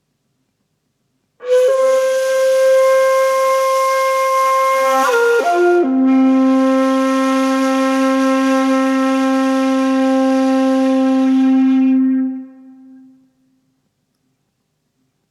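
A wind instrument playing slow, sustained notes with audible breath. A long held note steps down through a brief turn to a lower note, held for about six seconds before fading away.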